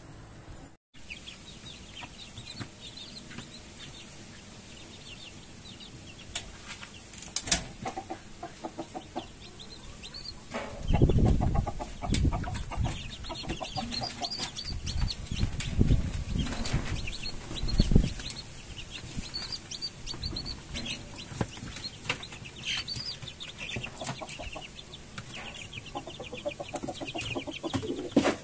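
A flock of young Rhode Island Red chickens clucking and peeping continually, with louder bursts of rustling and thumps midway through.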